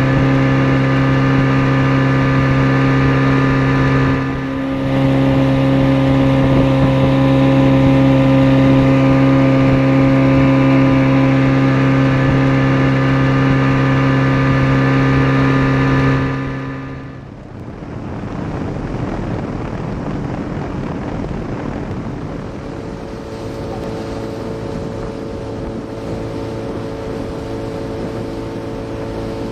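Fishing boat's engine running at a steady speed, an even hum over the rush of water past the hull. A little over halfway through, the engine note drops away to a softer rush of water and wind, and a fainter engine hum comes back near the end.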